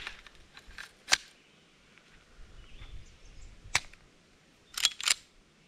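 Sharp metallic clicks and clacks of a SIG Sauer P226 Mk25 pistol being handled: single clicks, the loudest a little over a second in, and a quick pair near the end.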